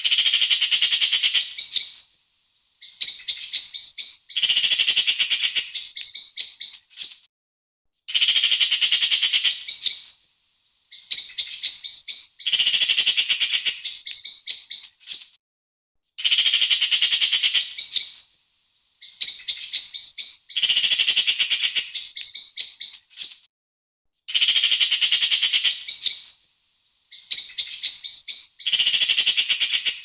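Magpie chattering: bursts of rapid, harsh repeated call notes a couple of seconds long, separated by short pauses. The same sequence comes round again about every eight seconds.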